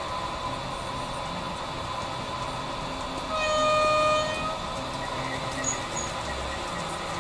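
Digital sound decoder of a BRAWA HO-scale model diesel locomotive playing diesel engine running sound, with one horn blast of about a second a little past the middle.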